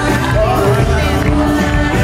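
Live church worship music: a band playing with voices singing over held bass notes.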